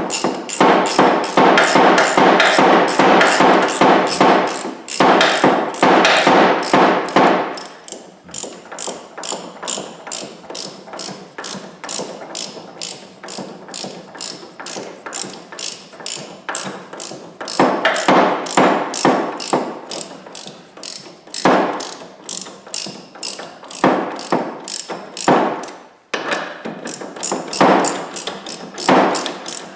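Hand ratchet with a 27 mm socket clicking steadily, about four clicks a second, as it runs down the rear axle locking nut by feel; the clicking is louder for the first several seconds.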